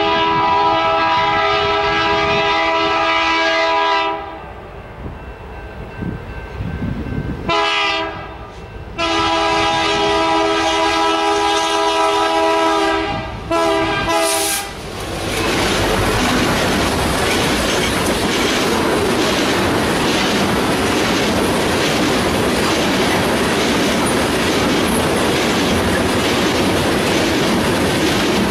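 BNSF diesel freight locomotive sounding its multi-chime air horn as it approaches: a long blast, a short toot, then another long blast. About fifteen seconds in, the locomotive passes close by, followed by a train of tank cars rumbling past with a rhythmic clickety-clack of wheels over the rail joints.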